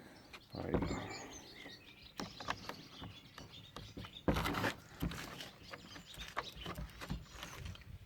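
Scattered clicks and knocks of the oil bottle and the chainsaw's oil-tank cap being handled while the chain-oil reservoir is topped up, with a louder scuffing noise about four seconds in. Birds chirp in the background.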